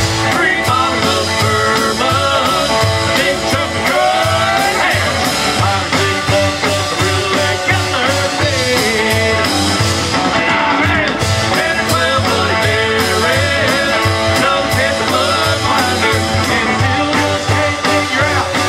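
Live rock band playing a song: electric and acoustic guitars and bass over a steady drum beat, with a singer.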